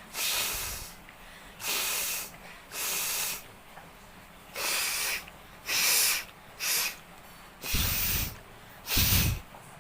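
A person blowing their nose hard: about eight short, forceful blasts of air through the nose in a row, the last two deeper and heavier.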